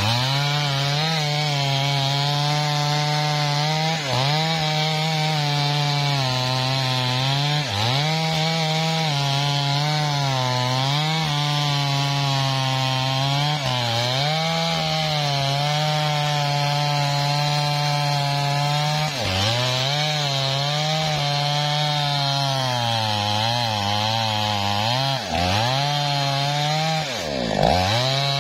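Small Maestro petrol chainsaw running at full throttle with its bar deep in the trunk of a large sengon (albasia) tree, cutting under heavy load. The engine holds a high, steady pitch but bogs briefly every few seconds as the cut loads it, with a deeper dip and recovery near the end.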